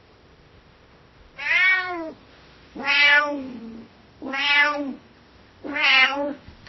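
A cat meowing four times, about a second and a half apart; each meow is short and rises then falls in pitch.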